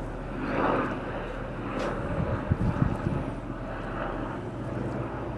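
Halved Brussels sprouts being set one by one flat side down on a preheated metal sheet pan, with a few soft taps and knocks about two to three seconds in, over a steady low drone.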